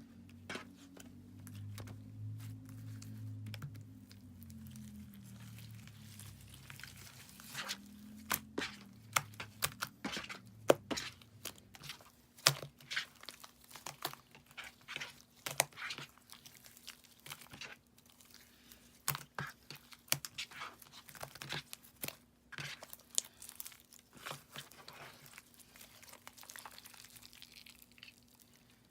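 Clear slime being squished, stretched and folded by hand as glitter is mixed in, giving irregular sticky clicks and pops. The popping is busiest through the middle and thins out near the end.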